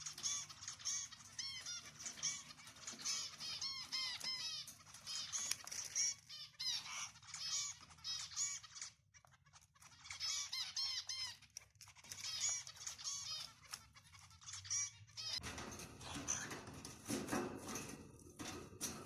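Pet cockatiels chirping, rapid runs of short, high, arched calls in bouts with brief pauses. About three quarters of the way through, the calls give way to a coarser rustling noise.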